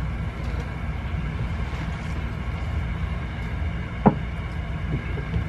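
Steady low outdoor rumble, with a single sharp knock about four seconds in.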